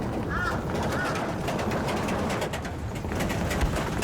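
A bird calling twice in quick succession, short arched whistles within the first second, the second fainter, over a steady background hiss of outdoor ambience.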